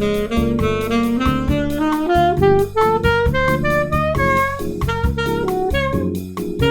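Saxophone improvising a quick jazz line of single notes over an iReal Pro backing track with bass and drums, the accompaniment alternating between E-flat major seventh and E minor chords.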